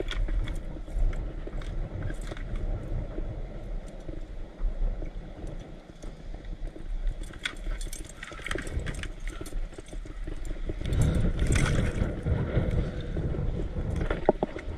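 The metal clips of a fish stringer clinking now and then as crappie are clipped on, over water lapping at a plastic kayak and a low steady rumble that swells about two-thirds of the way through.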